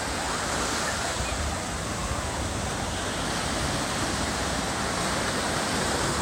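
Ocean surf breaking and washing up the sand in a steady rush of noise.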